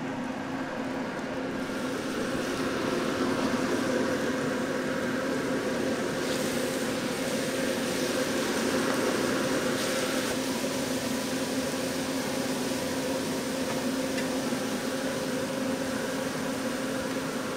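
Oysters frying on a flat iron griddle, a steady sizzle, under a constant mechanical hum.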